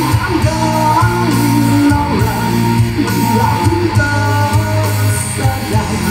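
Live rock band playing loudly through a concert PA, heard from the audience: electric guitar and bass over a steady bass line and drum hits, with vocals.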